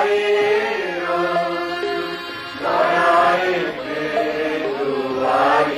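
A slow song sung in long, held notes.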